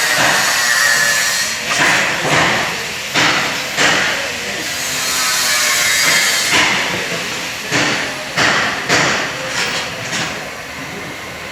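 Seat belt retractor parts being handled and fitted by hand: a run of irregular clicks, knocks and rattles of small hard parts.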